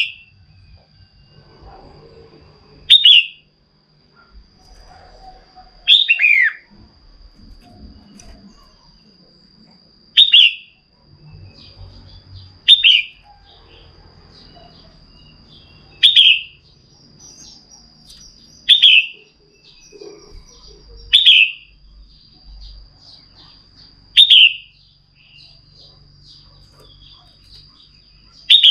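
Red-whiskered bulbul, a female by the title, giving short, loud calls about every three seconds, each a quick downward-sliding note. This is the female's call used to stir up males.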